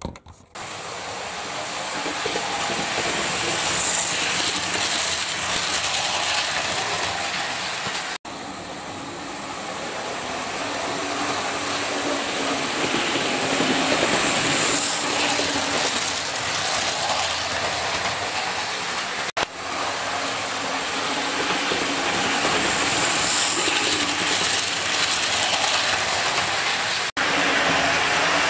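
Model railway locomotives running on the layout: a steady whir of small electric motors and wheels on the track, with a faint hum. It breaks off abruptly three times, near 8, 19 and 27 seconds.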